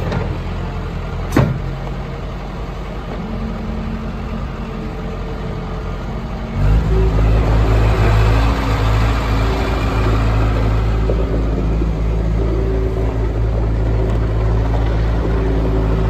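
Case 450 skid steer loader's 88 HP Case diesel engine running steadily, with a single sharp click about a second and a half in. About six and a half seconds in the engine suddenly gets louder and stays there as the machine drives across gravel.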